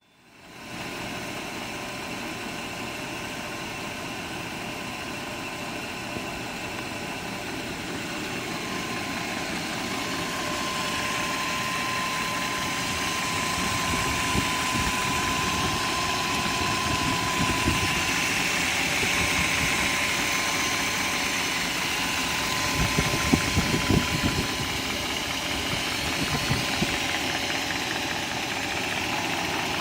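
1997 BMW 540i's M62 4.4-litre V8 running at idle with a rattle that the owner suspects is the timing chain. The sound grows slightly louder through the first half, with a few sharper knocks about three quarters of the way through.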